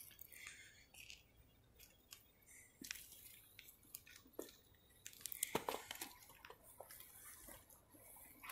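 Near silence broken by faint, scattered rustles and small clicks from movement and handling, a little busier about five to six seconds in.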